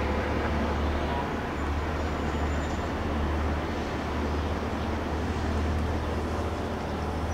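Steady low background rumble and hum with an even hiss. No distinct events stand out.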